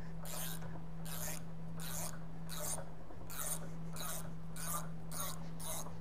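Ratcheting wrench clicking in short bursts, two or three a second, as a stock coolant connector is unscrewed from a spindle motor. A steady low hum runs underneath.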